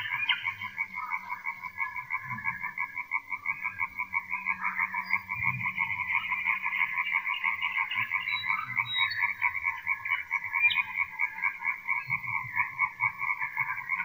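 A dense chorus of many frogs calling at once, a continuous fast-pulsing croaking din in two overlapping pitches.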